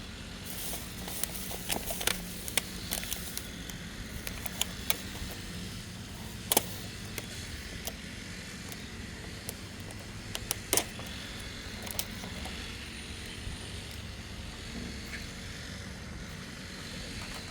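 Lawn mower engine running steadily as a low hum, with scattered sharp knocks over it; the loudest knocks come about six and a half and eleven seconds in.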